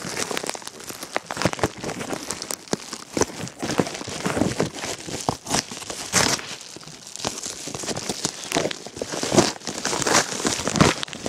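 A package being torn open by hand: irregular crinkling and crackling of wrapping with sharp snaps and rips as the tape is pulled away.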